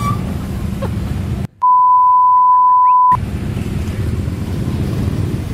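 A single steady electronic beep at one pitch, lasting about a second and a half, cuts in about a second and a half in with the other sound muted beneath it: a bleep edited into the soundtrack. Around it is the low rumble of idling motorcycles in a crowd.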